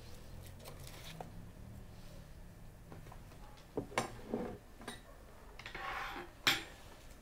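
A few sharp clinks and knocks of cutlery against dishes, the loudest near the end, with a short rustling swish just before it.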